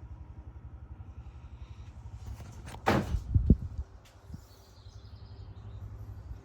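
Ceiling fan running on medium speed: a steady low hum with a fast flutter. About three seconds in, a loud, brief swish followed by a couple of thumps.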